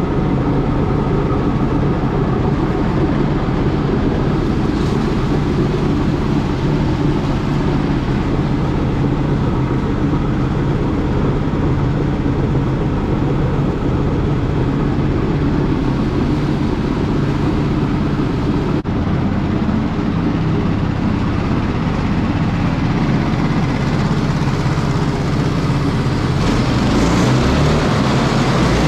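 Small gas-powered straw bedding chopper running steadily, its engine and chopping rotor humming continuously.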